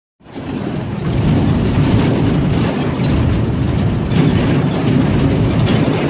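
Open-top safari jeep driving along a dirt track, heard from inside: a steady engine and ride rumble that comes in just after a brief silent gap at the start.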